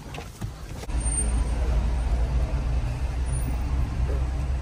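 Steady road and engine rumble heard inside the cabin of a moving Honda car. It starts about a second in, after a quieter moment with a few light knocks.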